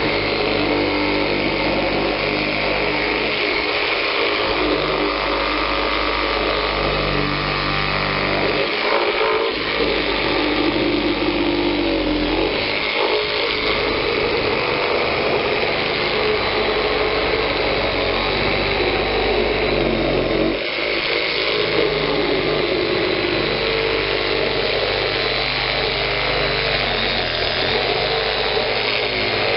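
Kobalt 4-amp corded variable-speed reciprocating saw cutting through the top of a plastic barrel. It runs steadily, and its motor speed dips and shifts a few times as the trigger is eased.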